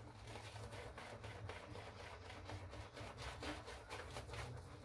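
Shaving brush being worked over a lathered face: a faint, rapid scratchy swishing of bristles through thick lather.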